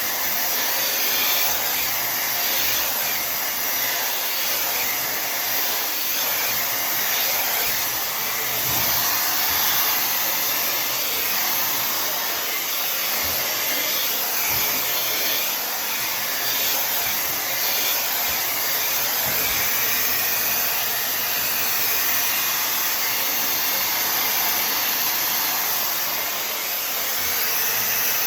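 Tymo Air Hype hair dryer running steadily, a constant even rush of blown air while hair is being dried.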